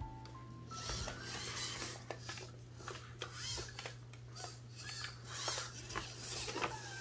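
A MarsCat robot cat moving under a hand: its servo joints whir and its plastic body clicks and rubs as it lowers into a crouch while its chin is stroked. A few short electronic tones step up in pitch at the start, over a steady low hum.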